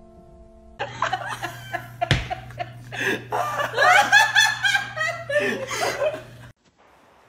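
People laughing hard in repeated bursts, with a single sharp knock about two seconds in. A low steady hum runs under the laughter and cuts off with it near the end.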